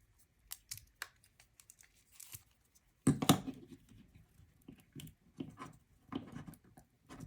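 Hook-and-loop velcro being peeled apart and pressed back together, in short rasping rips among small handling clicks; the loudest rip comes about three seconds in.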